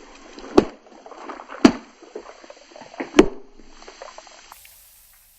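Objects popping as they are crushed: three sharp pops, spaced about a second and a half apart, with faint crackling between them that dies away near the end.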